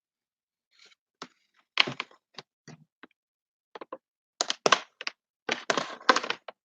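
Irregular knocks, clicks and thuds in two clusters, about two seconds in and again near the end, with silence between.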